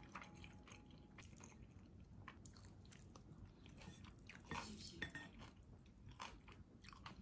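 Wooden chopsticks and a wooden spoon tossing sauce-coated pasta in a ceramic bowl: faint scattered clicks and scrapes of wood on the bowl, the sharpest two about four and a half and five seconds in.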